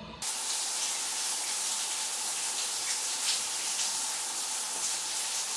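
Shower running: a steady hiss of water spray that starts abruptly a moment in, as a bit of music cuts off.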